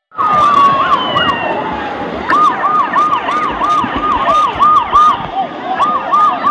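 A siren-like warbling tone cuts in abruptly. It opens with a long falling glide, then rises and falls about three times a second, breaks off briefly and starts again, over a steady wash of background noise.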